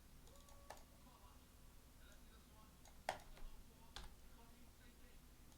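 Near silence: room tone with a few faint, sharp clicks, the loudest about three seconds in and another a second later.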